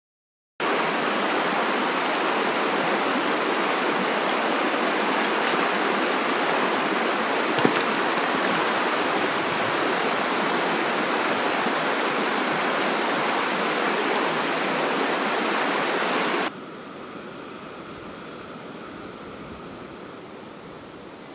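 Mountain stream rushing over rocks, a loud and steady flow of water, with a couple of faint clicks about seven seconds in. About sixteen seconds in it drops suddenly to a much quieter, distant rush.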